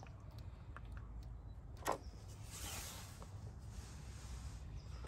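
Faint sound of engine oil being poured from a plastic jug through a plastic funnel into the engine's oil filler, with a short click about two seconds in and a soft rushing hiss for about two seconds after it.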